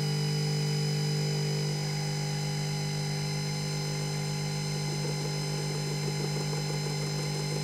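Unimat 3's spindle motor running steadily at speed, with the cutter in its drill chuck spinning free before it touches the work. It gives a steady hum with a thin high whine above it.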